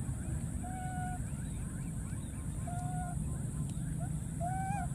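Baby macaque calling: three short, steady-pitched coos about a second apart, the last one rising a little at its start. A steady high insect buzz and faint chirps run underneath.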